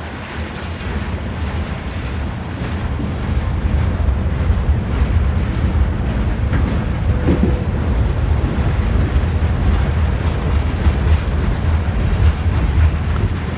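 Freight train rolling past, a steady low rumble of wheels and cars on the rails that grows louder over the first few seconds and then holds.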